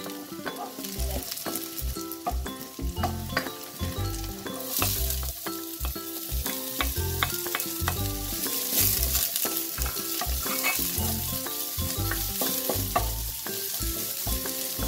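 Minced garlic and chopped onion sizzling in oil in a stainless-steel wok, with a spatula scraping and tapping against the pan as it is stirred.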